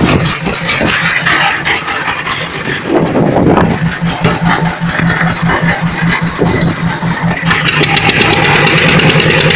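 A fishing boat's engine running with a steady hum and rapid, even firing pulses. It gets louder and faster about three-quarters of the way through.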